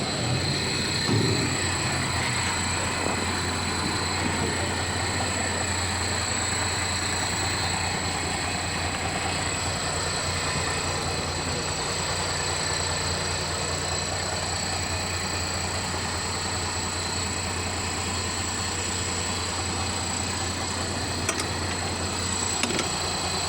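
Vehicle engine idling steadily with a low, even hum. A couple of faint clicks come near the end.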